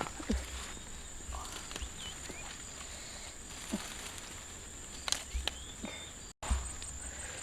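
Forest ambience: a steady, high insect drone with scattered rustles, taps and low thumps of someone moving or working close by.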